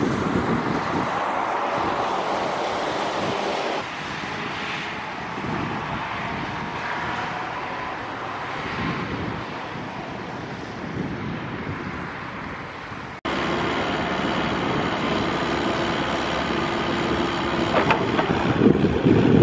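Wind buffeting the microphone over a low, steady drone. The sound changes abruptly twice, about four and about thirteen seconds in.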